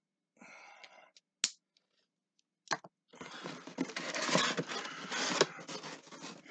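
Packaging being handled and opened by hand: a short rustle, two sharp clicks, then from about three seconds in a long stretch of dense crinkling and tearing.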